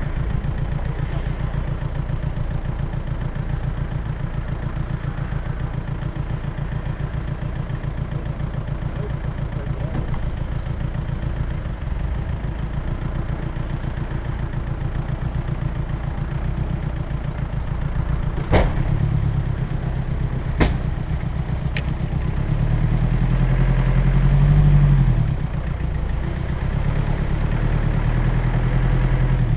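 Land Rover Discovery 1's engine running at low revs as the 4x4 crawls over a rough, muddy off-road track. Two sharp knocks come about two seconds apart past the middle, then the engine revs up briefly and settles back down.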